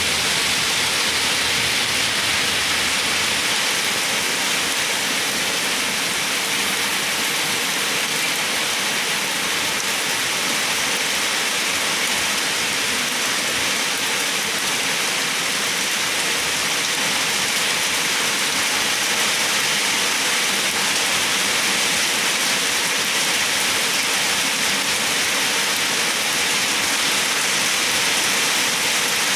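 Steady heavy rain falling, an even hiss of rain on surfaces.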